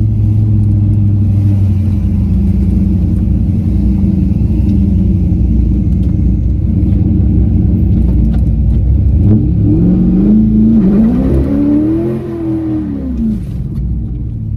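Cammed LS1 5.7-litre V8 of a C5 Corvette, heard from inside the cabin, running steadily at low revs, then about nine seconds in revving up hard twice and dropping back, for a burnout on the rear tyres.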